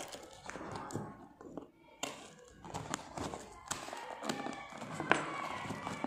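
Cardboard shipping box being opened by hand: packing tape slit along the seam with a small blade, with irregular scraping, crinkling and light taps on the cardboard, and a sharper knock about five seconds in.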